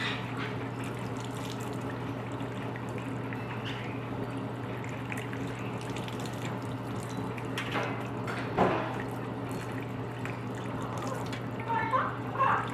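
Water running steadily from a tap over a bathing macaw, with a steady low hum underneath. A couple of brief louder sounds come about eight seconds in, and more start just before the end.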